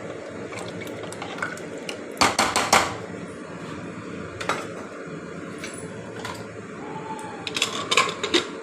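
Metal kitchen utensils clinking and clattering against a cooking pot: a quick run of strikes about two seconds in and another near the end, over a steady hiss.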